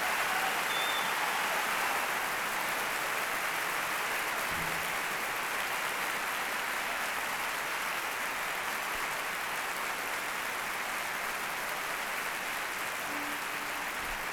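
Large theatre audience applauding steadily, the clapping slowly dying down.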